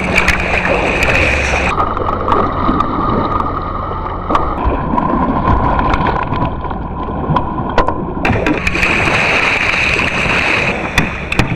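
Kayak paddle blades splashing through the water in quick hard strokes, with water sloshing against the hull and wind on the microphone.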